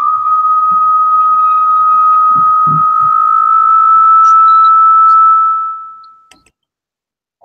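Audio feedback squeal: one loud, steady high tone that rises slightly in pitch and fades out about six seconds in, as the live call's microphone picks up the played-back video.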